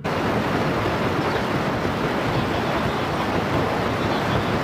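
A loud, steady rushing noise with no pitch, starting abruptly and holding evenly throughout.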